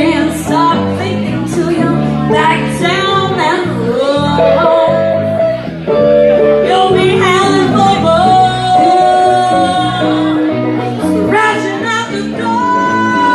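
Live blues band: a woman singing lead into a microphone over electric guitar and bass guitar, holding a long note a little past the middle.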